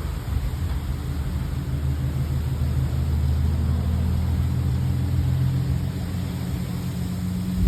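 A motor running steadily at one constant pitch, like a vehicle engine idling, over a low rumble of wind.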